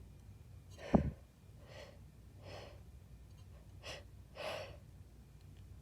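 A woman breathing hard in noisy gasps, several breaths in and out, short of breath after a violent sneezing fit. About a second in comes a short sharp burst, the loudest sound.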